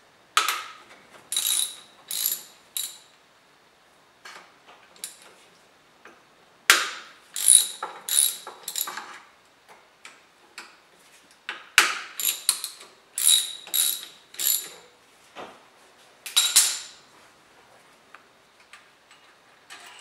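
Hand ratchet wrench clicking in several short bursts of quick, ringing clicks with pauses between, as it turns an E14 Torx socket to loosen the alternator's mounting bolts.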